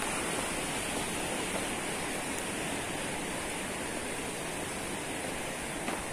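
Steady rush of muddy floodwater running fast down a stream swollen by heavy rain.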